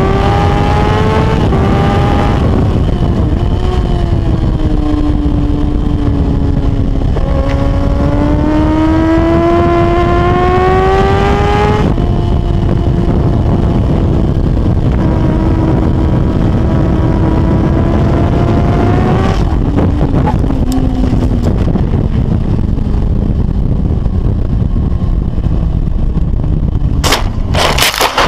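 Racing motorcycle engine at high revs under load, its pitch rising and falling with throttle and gear changes, with heavy wind noise on the on-board microphone. Near the end, a quick series of sharp impacts and scrapes as the bike crashes.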